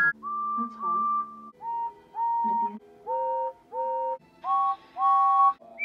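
Steam-engine whistle sound effects from the Thomas & Friends animated series: four different engine whistles, each blown twice in quick succession, every blast sliding up in pitch as it starts. The first pairs are single higher notes, the later ones two notes sounded together as a lower, fuller chord.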